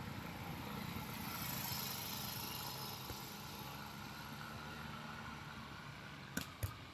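A distant engine hums steadily under wind and surf. Near the end come two sharp knocks close together, a volleyball being hit.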